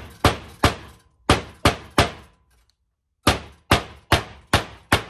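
Claw hammer driving a nail into a sheet of OSB: sharp blows about two to three a second, about five of them, a pause of just over a second, then about five more.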